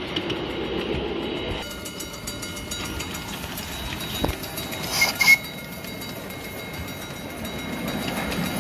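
Large-scale model train running, with two quick toots of its whistle about halfway through, just after a single knock.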